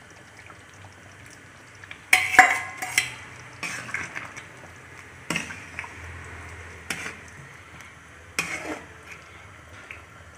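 Metal spatula stirring thick chicken stew in a metal pot, scraping and knocking against the pot's side. The clanks start about two seconds in, the loudest first, and come roughly every second and a half.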